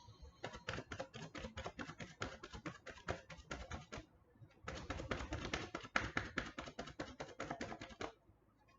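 Tarot cards being shuffled by hand, a rapid patter of card-on-card clicks in two runs with a short pause about four seconds in.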